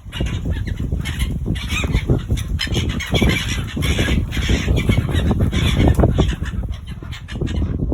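A flock of silver gulls squawking over one another while being fed, the calls densest in the middle stretch. A steady low rumble runs underneath.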